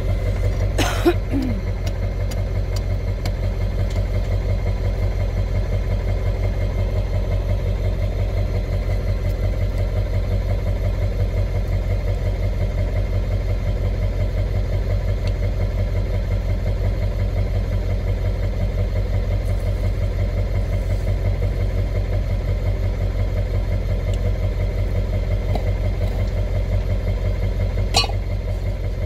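An engine idling steadily, a low, evenly pulsing rumble, with a sharp knock about a second in and another near the end.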